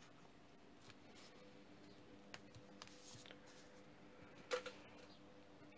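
Near silence with faint rustles and ticks of origami paper and a glue stick being handled, and one louder short click about four and a half seconds in.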